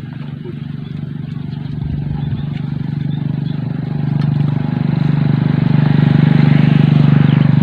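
A small engine running with a steady low pitch, growing steadily louder.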